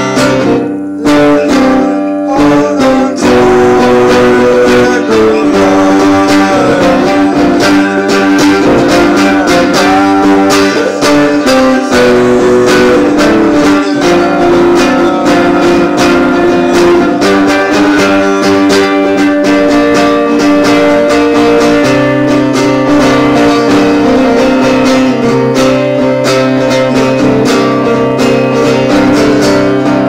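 Solo guitar played with quickly picked notes, running on without a break.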